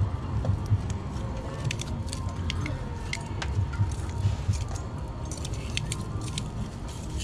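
Scattered light clinks and rattles of small objects being handled, over a steady low rumble.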